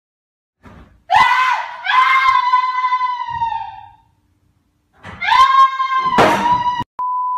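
A woman's high-pitched screaming in two long screams, with a loud thud during the second one as a chair is slammed into someone. A steady beep follows near the end.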